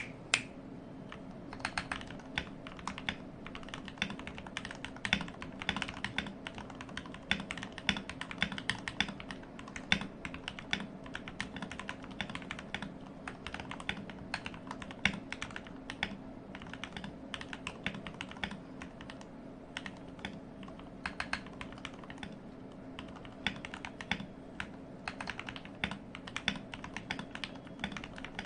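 Continuous typing on a modded TM680/LK67 mechanical keyboard: a fast, uneven run of keystroke clacks.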